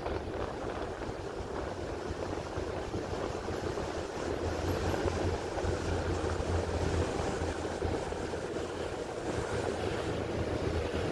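Steady rumble of a moving vehicle, with a constant low hum underneath.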